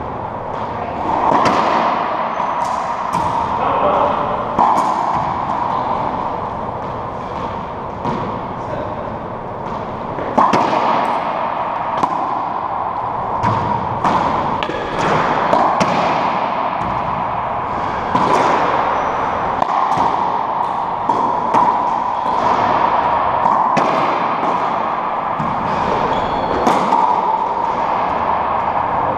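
Racquetball rally in an enclosed court: the ball cracks off racquets and walls again and again, each hit echoing, over steady background noise.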